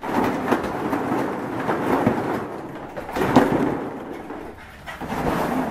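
Hollow plastic ball-pit balls rattling and clattering against each other and the plastic tub as a dog thrashes through them, with a louder burst about three and a half seconds in.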